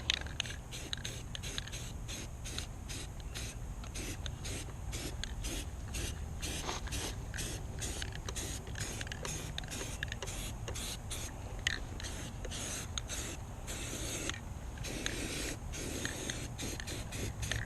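Wire wheel scouring rust and old paint off a steel boat-trailer rim, in quick scraping strokes about three a second over a faint steady whine.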